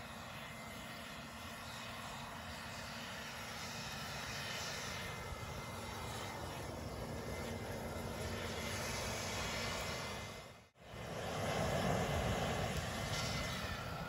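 Cordless Einhell leaf blower running steadily, a high motor whine over the rush of air, blowing into a wood fire in a portable fire pit to fan the flames. Near the end it is switched off and the whine winds down.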